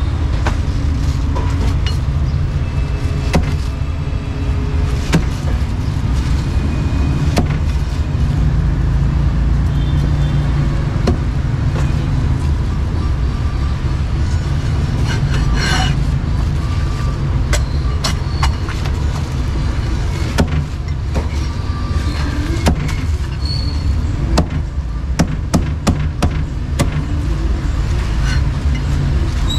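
Meat cleaver cutting and chopping a roast duck on a round cutting board: irregular sharp knocks, coming more often in the second half, over a steady low rumble.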